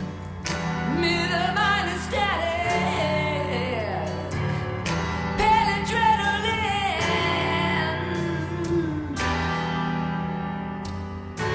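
Music: a song with a gliding sung melody over sustained low instrumental notes.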